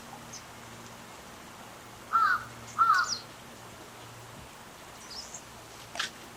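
A bird giving two loud, short calls about two and three seconds in, with a few faint high chirps of small birds and a sharp click near the end.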